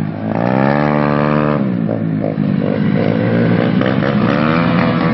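Small step-through motorcycle engines with modified exhausts running loudly under way. The pitch climbs steadily for about a second and a half, drops back abruptly, and then rises again near the end.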